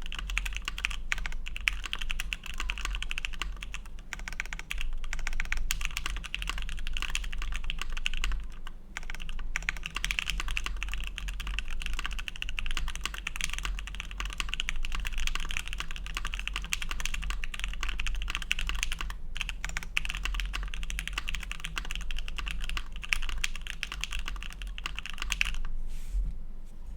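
Continuous fast typing on a custom tenkeyless mechanical keyboard with lubed and filmed FFFF switches, an FR4 plate and GMK keycaps, a dense run of keystroke clicks with brief pauses, trailing off near the end.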